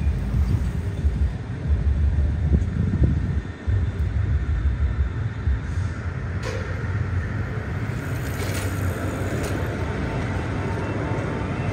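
Low, uneven rumble of city street traffic.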